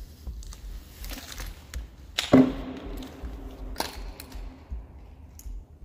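A loud bang a little over two seconds in that rings on with a low tone for about a second, among scattered lighter knocks and taps. Another sharp knock comes about a second and a half after the bang.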